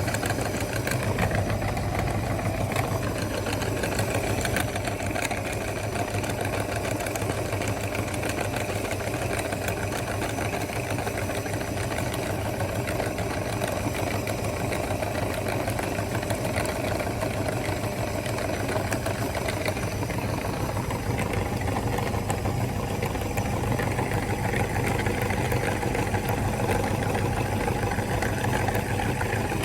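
Electric meat grinder running with a steady motor hum, grinding chocolate ice cream bars.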